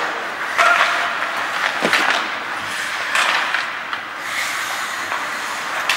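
Ice hockey play: skate blades scraping the ice over a steady hiss of rink noise, with a few sharp knocks of sticks and puck.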